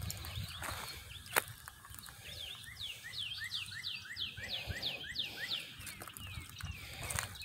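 A songbird singing a rapid run of repeated, quickly sweeping whistled notes, about five a second, for roughly three seconds from about two and a half seconds in. A single sharp click stands out about a second and a half in.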